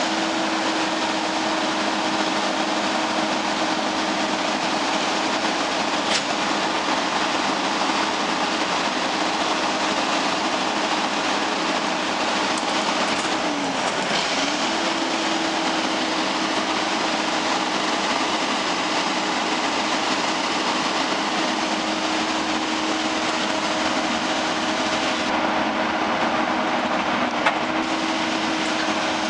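Peterbilt 320 garbage truck's diesel engine running steadily while the Leach 2R2 rear-loader body's hydraulics hold a 4-yard dumpster tipped over the hopper. It makes a steady mechanical hum whose tone dips briefly in pitch about halfway through, with a couple of light knocks.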